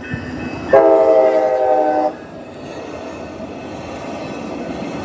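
Train horn sounding one blast of about a second and a half, a chord of several steady tones, starting about a second in. Then comes the steady rumble of the passing train.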